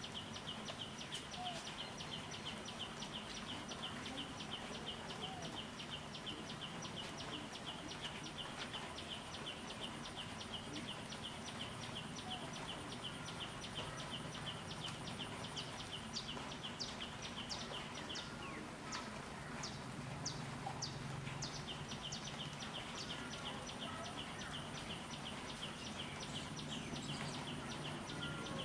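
Forest ambience: a high call pulses rapidly and evenly, over a thin steady high whine from insects. The pulsing drops out for a few seconds past the middle, while birds give a few quick chirps, then starts again.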